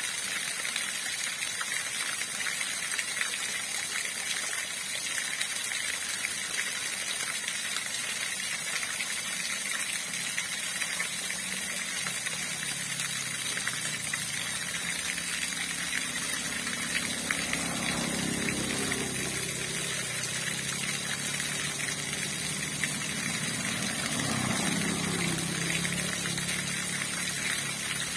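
Flowing river water rushing steadily. In the second half a low droning hum swells up and fades twice under the water.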